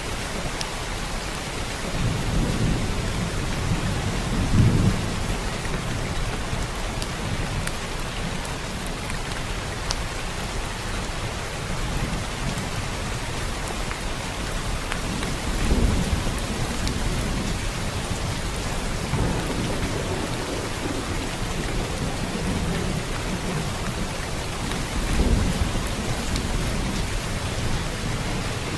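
Steady rain falling, with low rumbles of thunder that swell up several times, loudest about five seconds in, at around sixteen seconds and near twenty-five seconds.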